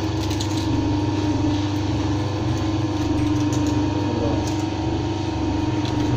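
Fish bone separator machine running with a steady motor hum as fish is fed against its drum, with a few faint clicks.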